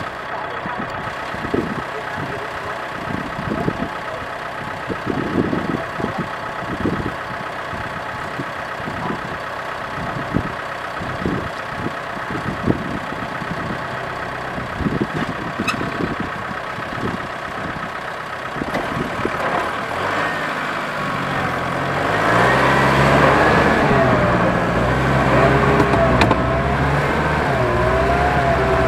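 Tractor diesel engines idling steadily, with irregular thumps, for about twenty seconds. Then they rev up and run louder under load, their pitch wavering, as the stuck tractor's wheels spin in the mud.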